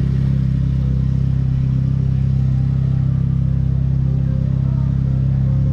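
Car engine running steadily at low revs, a continuous low hum.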